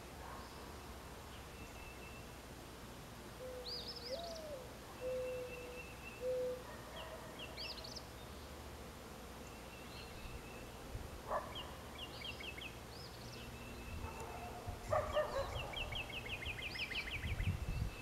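Mourning dove giving one perch coo: a low first note, a coo that rises and falls, then two short even notes. This is the two-note-ending variant of its territorial and courting song. Other small birds chirp at a higher pitch, and a fast trill comes near the end.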